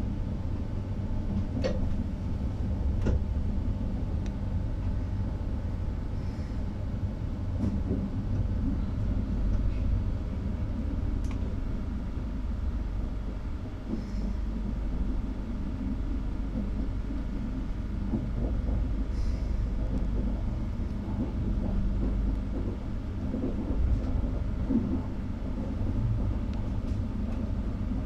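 Inside a Trenord TAF electric multiple unit running along the line: steady low rumble of the wheels on the rails, with a few faint clicks.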